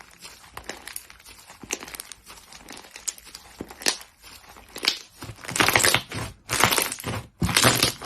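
Slime being pressed and squeezed by hand: scattered small crackles and pops, then three louder crackling presses in a row from about five seconds in.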